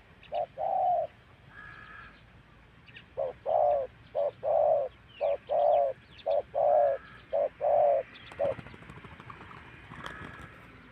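Spotted dove cooing: a short two-note coo near the start, then after a pause a long run of about a dozen low coo notes. Faint chirps of other small birds sound between and after the coos.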